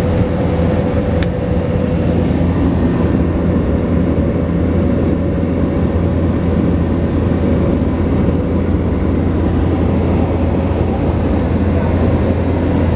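Cabin noise of a Cessna 208 Caravan in flight on approach to land: its single Pratt & Whitney PT6A turboprop engine and propeller drone steadily, with a steady mid-pitched tone held over the low rumble.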